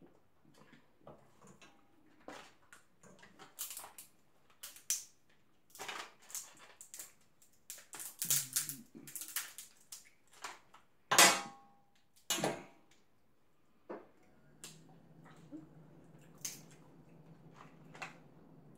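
Cooked crab legs being cracked open by hand: irregular sharp cracks and crunches of shell, the loudest two about eleven and twelve seconds in.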